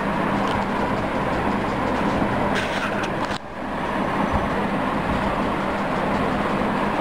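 Steady, fairly loud background noise with a low hum, briefly dipping about three and a half seconds in, with a few faint scratchy handling sounds just before.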